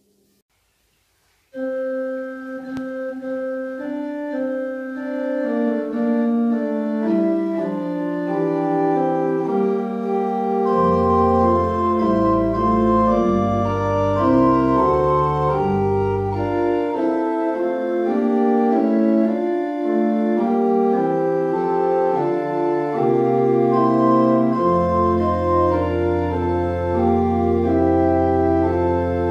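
Church pipe organ playing a hymn introduction: it starts about a second and a half in with sustained chords, and deep pedal bass notes come in around the middle, drop out, and return near the end.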